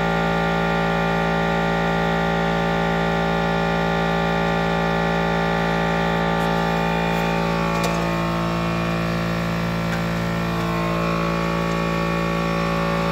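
Steady machine hum made of many fixed tones, unchanging throughout. Faint clicks and rubbing from about two-thirds of the way in come from the brake caliper and pads being worked off the rotor by hand.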